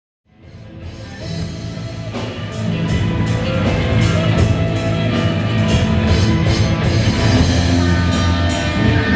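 Rock band music fading in from silence and building to full loudness over about three seconds, with steady bass notes and regular drum hits.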